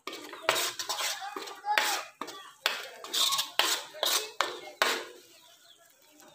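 Spoon scraping and knocking against a metal kadhai while stirring thick tomato paste and spice masala as it fries, about two or three strokes a second, stopping about five seconds in.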